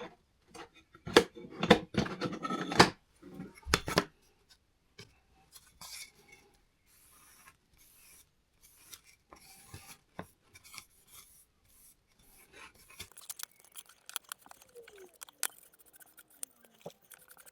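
Wooden case panel being handled and wiped with an oil cloth while Danish oil is rubbed in: a run of loud scratchy rubbing strokes over the first few seconds, then only occasional light clicks and faint rubbing.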